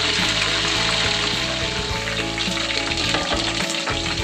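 Chicken pieces deep-frying in hot oil in a wok: a steady, dense sizzle.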